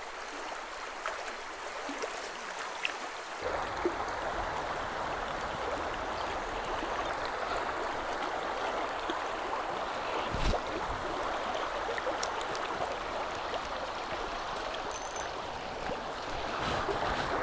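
River current running in a steady rush of water, which grows louder about three seconds in. A single dull thump about ten seconds in.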